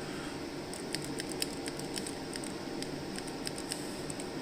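Nissan Leaf brake-pedal limit switch worked by hand, its plunger giving a scatter of faint, short, sharp clicking squeaks, a few at a time. Squeaking limit switches are the cause of the car's creaking brake pedal.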